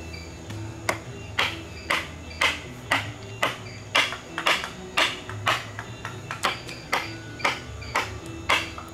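Mallet striking a steel chisel cutting into the wood of a large elephant carving. Light taps at first, then strong, even blows at about two a second.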